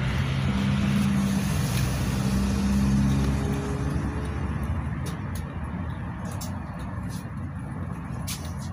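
GAZelle Next minibus with its Evotech 2755A engine, heard from inside the cabin as it drives along: the engine note is strongest for the first three seconds, then eases into road noise. A few light clicks and rattles come in the second half.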